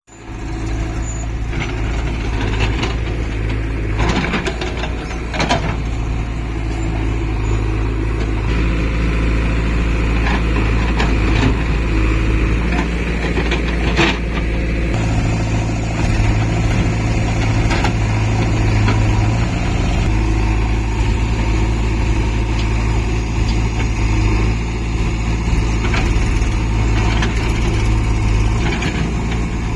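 Diesel engines of a backhoe loader and tractors working. The engine note changes a few times, and sharp knocks come about 4, 5 and 14 seconds in.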